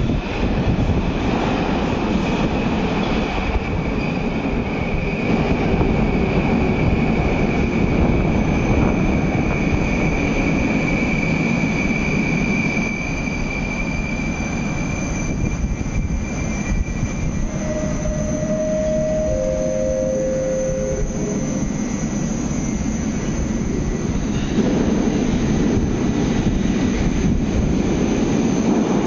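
Moscow metro train running, with a steady rumble and a high whine that fades out about halfway through. A little past the middle come three short falling tones, and the rumble grows louder again near the end.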